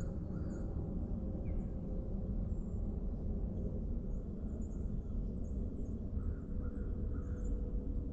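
Morning forest ambience: faint, scattered bird chirps over a steady low rumble and a faint steady hum.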